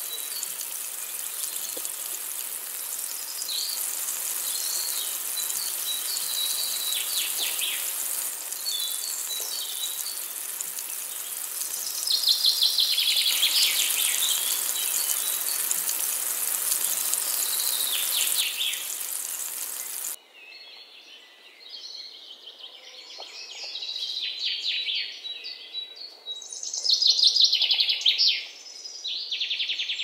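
Several birds singing and calling in repeated trills, loudest in the middle and near the end. A steady high hiss sits behind them and stops abruptly about twenty seconds in, while the birdsong goes on.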